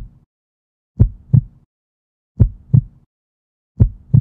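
Heartbeat sound effect: slow, deep double thumps (lub-dub), one pair about every second and a half, three pairs in all.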